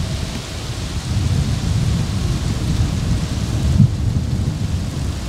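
Wind buffeting the microphone: a loud, gusting low rumble with a fainter hiss above it.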